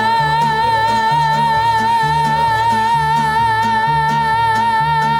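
Mariachi band playing, with one high note held with vibrato through the whole stretch over a steady repeating bass line.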